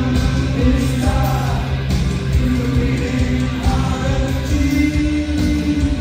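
Rock band playing live on amplified electric guitars, bass and drums through a concert PA.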